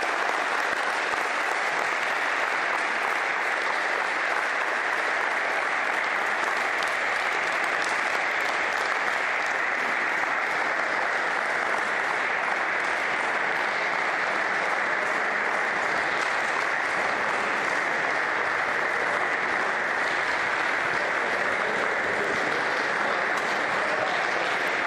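Audience applauding, a dense and steady clapping that holds at the same loudness throughout.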